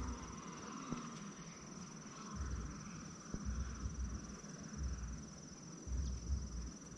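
A cricket-like insect trilling on one steady high note, with dull footsteps of someone walking, about one step a second, from about two seconds in.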